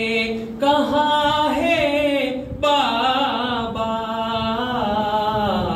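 A man chanting an Urdu marthiya, a mourning elegy, unaccompanied, drawing out long held notes that slide in pitch, with a brief break for breath about two and a half seconds in.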